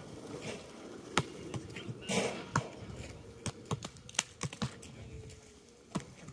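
A basketball bouncing on a hard court amid players' footsteps, heard as a series of sharp, irregularly spaced knocks, with a brief scuff about two seconds in.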